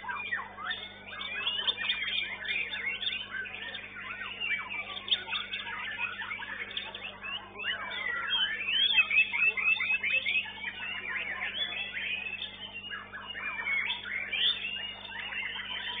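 Murai batu (white-rumped shamas) singing in a songbird contest, a dense run of quick whistles, chirps and sliding notes from several birds overlapping, over a steady low electrical hum.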